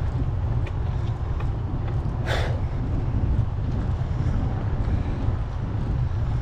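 Wind buffeting the microphone of a camera on a bicycle climbing into the wind: a steady low rumble, with one short hiss about two seconds in.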